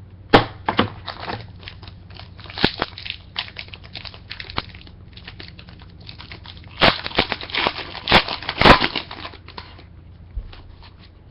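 Trading cards being handled and slid through the hands, with crinkling from a foil pack wrapper: an irregular run of rustles and clicks that gets busier and louder near the end.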